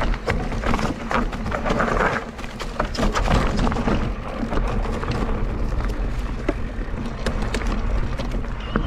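Mountain bike, a Mondraker Crafty electric enduro bike, riding a rough trail: tyres on dirt and stones, with many sharp rattles and knocks from the bike over bumps and wind rumbling on the microphone. A steady high whine comes in near the end.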